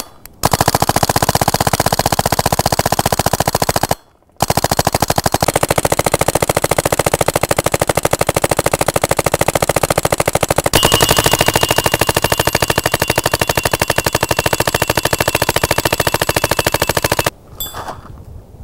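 Tippmann 98 paintball marker fitted with a Response Trigger kit firing long strings of rapid shots, a near-automatic rate that the gas-returned trigger allows. There are two strings: a short one, a brief break about four seconds in, then a long one that stops about a second before the end.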